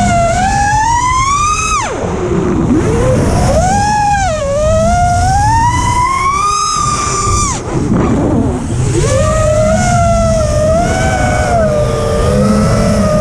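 FPV quadcopter's brushless motors and propellers whining, the pitch rising and falling with the throttle. Twice the throttle is chopped and the whine drops away sharply before climbing back, with wind rush underneath.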